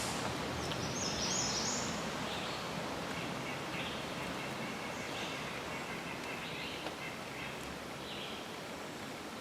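Steady outdoor background noise with a few short bird calls scattered through it.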